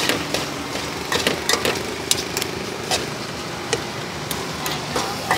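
Metal spoons clinking and scraping against a wide aluminium wok in irregular strokes as corn kernels are stir-fried, over a steady engine-like hum.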